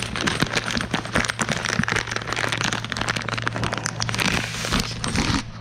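Clear plastic packaging of a nylon fuel line repair kit being torn open and crinkled: a dense run of crackles, over a steady low hum.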